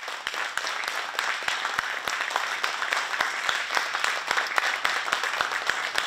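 An audience applauding: many hands clapping in a steady, dense patter.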